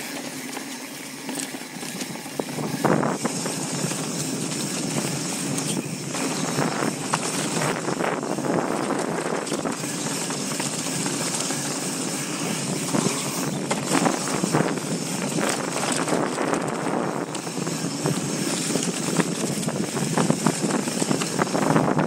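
Mountain bike being ridden along a rough trail: tyres on the dirt and the bike rattling over the bumps, with a steady rushing noise and many sharp knocks.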